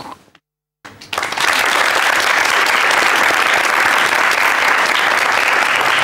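A brief moment of dead silence, then a studio audience applauding steadily from about a second in.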